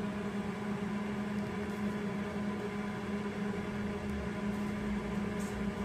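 A steady machine hum with a low hiss, holding one even pitch throughout.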